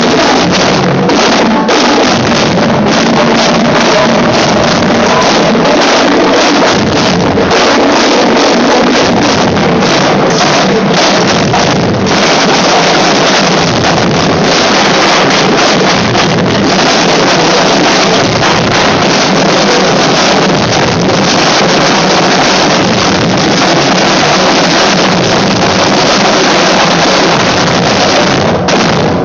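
Student percussion ensemble (drum line) playing a world-music drum piece together: loud, dense drumming with a steady pulsing beat.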